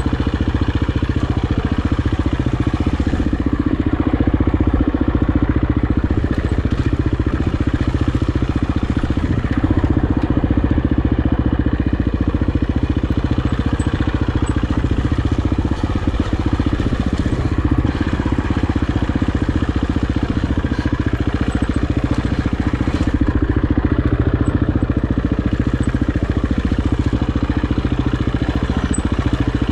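KTM enduro dirt bike engine running at low, fairly even revs as the bike works slowly over rocky singletrack, heard from the rider's helmet camera.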